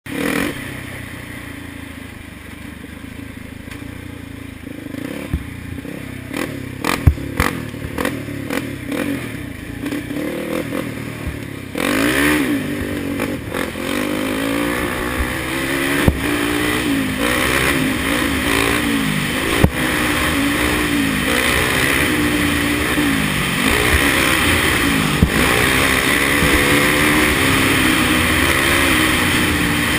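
Can-Am DS450 ATV's single-cylinder four-stroke engine running hard on the trail. It is quieter at first, with a run of sharp knocks and clatter. About twelve seconds in it gets louder, and its pitch keeps climbing and dropping as the throttle is worked.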